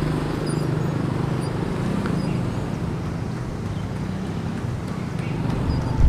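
Roadside ambience: a steady low hum of distant traffic that eases slightly after the midpoint, with a few faint high chirps.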